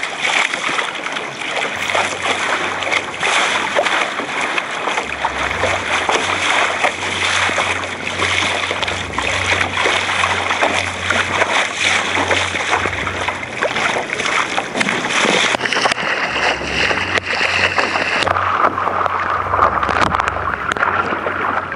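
Water rushing and splashing against the bow of a small sailing dinghy as it drives through choppy waves, with a steady rush of noise and a low rumble of wind on the microphone.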